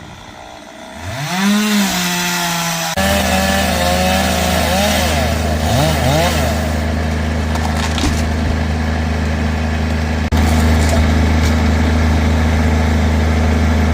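Gas-engine tree-removal equipment running. A chainsaw revs up about a second in, then, after a cut, a steady, louder engine runs with a deep drone, with another cut near ten seconds.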